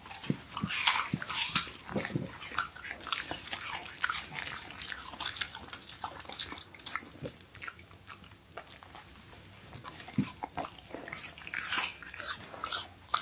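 A Siberian husky biting and chewing apple: irregular crisp crunches and wet chewing clicks, thickest in the first few seconds and again near the end.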